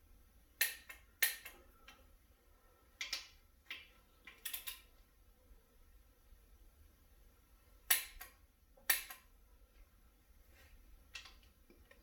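Click-type torque wrench clicking over on the 10 mm side main-cap bolts of a 6.0 LQ4 V8 block as each reaches its set 18 ft-lb. About eight sharp metallic clicks a second or more apart, some in close pairs.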